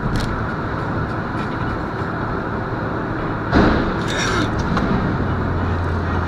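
Steady road and engine noise heard from inside a moving car on a motorway. About three and a half seconds in there is one sudden loud thump, followed briefly by a higher rattle.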